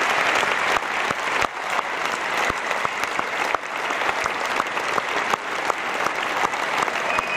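Large concert audience applauding: dense, steady clapping from many hands.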